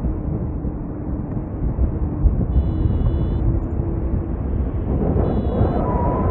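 Airflow rushing over the microphone in flight, a steady low rumble, with two short faint high-pitched tones in the second half.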